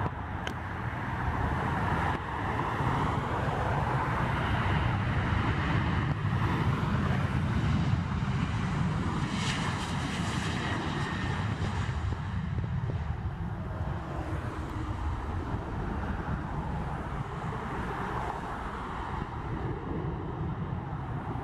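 Boeing 737 jet airliner's two turbofan engines at takeoff power through the takeoff roll and climb-out: a steady rumble that eases slightly about halfway through.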